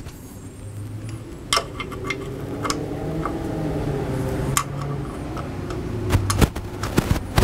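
Scattered light clicks and knocks from an outboard's lower unit being handled and held up to the midsection for fitting, over a steady low hum.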